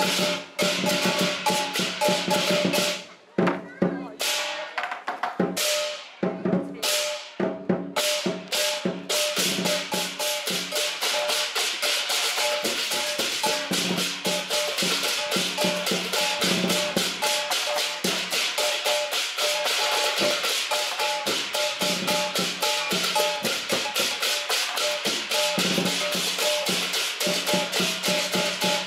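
Lion dance percussion: a big drum with clashing cymbals and gong, playing a few widely spaced heavy strikes early in the passage, then a fast, steady beat from about nine seconds in.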